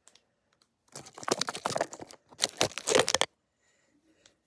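Crinkling and rustling of a candy wrapper being handled, in crackly bursts for about two seconds starting around a second in, then stopping.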